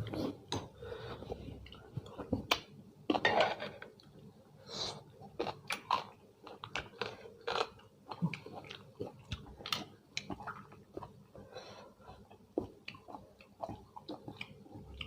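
A man chewing and crunching food close to the microphone: irregular wet bites and crisp crunches, several a second at times.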